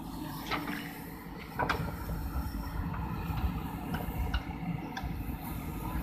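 JCB backhoe loader's diesel engine running while the backhoe digs, with several sharp metal clanks from the boom and bucket. It runs louder from about a second and a half in.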